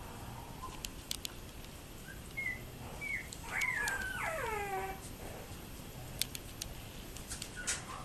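Young yorkiepoo puppies whimpering: a couple of short high squeaks, then a longer whine that falls steeply in pitch about halfway through. Scattered faint clicks run underneath.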